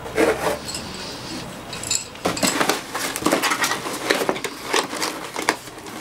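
Rummaging and handling of things by the bed: rustling with a quick string of small clicks, scrapes and light knocks, busiest in the second half.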